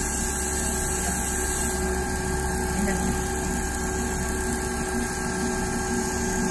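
Richpeace CNC rotary-head sewing machine stitching a duvet panel: a steady mechanical whirr of the running sewing head, with a constant hum.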